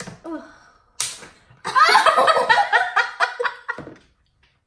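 A sharp smack about a second in, followed by about two seconds of girls laughing loudly.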